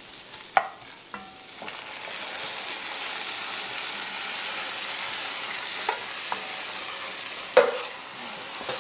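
Onions and bacon bits sizzling in a cast-iron Dutch oven while canned beans are tipped in and stirred with a wooden spoon; the sizzle grows louder about two seconds in. A few sharp knocks against the pot, the loudest near the end.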